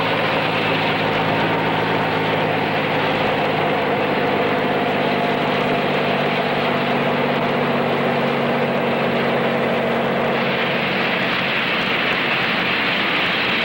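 Bell 47 helicopter running steadily in flight, a droning engine note with a rushing noise over it that grows brighter about ten seconds in.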